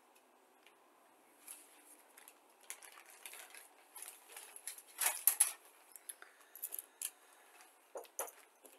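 Crinkling of a clear plastic parts bag and light clicks of small plastic model-kit parts being handled, loudest about five seconds in.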